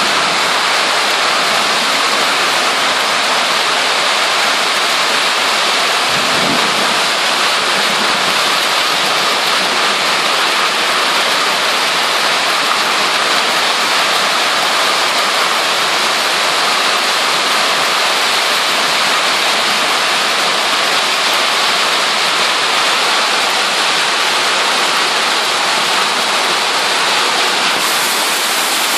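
Heavy hail and rain pelting down on the pavement in a loud, dense, steady hiss, mixed with the rush of runoff along the gutter.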